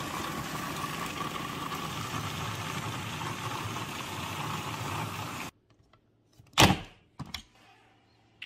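Food processor motor running steadily, its S-blade chopping frozen orange segments into ice, then cutting off suddenly about five and a half seconds in. A loud knock follows about a second later, then a couple of lighter clicks.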